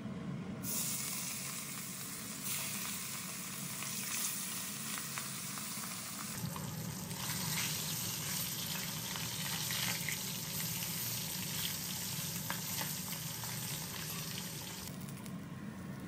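Fish pieces rubbed with salt and turmeric sizzling as they fry in hot oil in a metal wok, with light scrapes of a spatula turning them. The sizzle starts about half a second in and drops away near the end.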